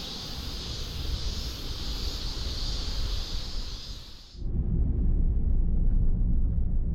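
Outdoor ambience: a steady, high-pitched hiss with a faint pulsing, which cuts off abruptly about four seconds in and gives way to a low rumble.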